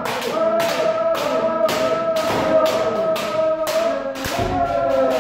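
Kendo drill: several players hold long, overlapping kiai shouts while sharp strikes crack about three times a second, bamboo shinai hitting armour and feet stamping in on the attack.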